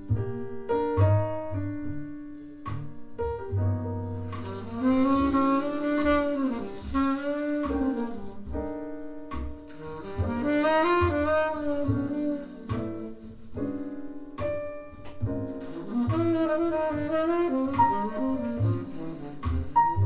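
Small-group jazz played back through Bowers & Wilkins 706 S3 bookshelf speakers: piano chords over plucked double bass, joined about four seconds in by a tenor saxophone melody with vibrato.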